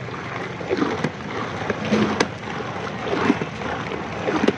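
Frothy milk and mango pulp sloshing and splashing as they are stirred by hand with a long metal ladle in a large metal pot, a stroke roughly every second, with a few sharp clicks.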